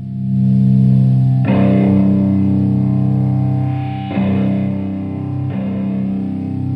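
Stratocaster electric guitar played through a ProCo Rat-type distortion pedal into a Marshall Plexi head and 4x12 cabinet. Distorted chords are left to ring, and new chords are struck about a second and a half in, about four seconds in, and about five and a half seconds in.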